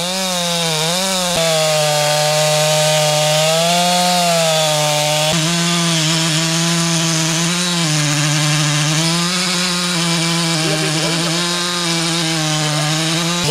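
Two-stroke chainsaw running at high revs while cutting through a hardwood trunk, first bucking a fallen log and then making a felling cut at the base of a standing tree. The engine note sags and recovers repeatedly as the chain bites into the wood.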